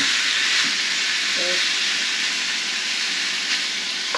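Ground meat sizzling steadily in a frying pan as it is stirred with a wooden spatula.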